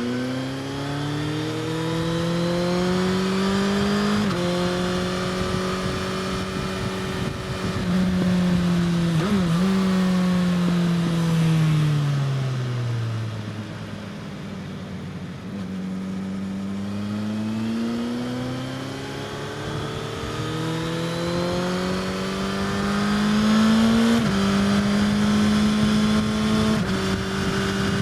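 Suzuki GSX-S1000's inline-four engine, breathing through an Austin Racing slip-on exhaust, revving hard under full throttle. The revs climb through the gears and fall sharply at each quick upshift. Midway the engine slows in a long falling drop, as when braking for a corner, then pulls hard again.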